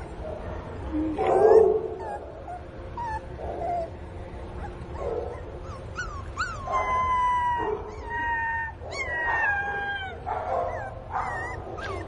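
A puppy whining and crying for its mother: a string of short, high yelps, then about halfway two long whines that fall in pitch, followed by more short cries.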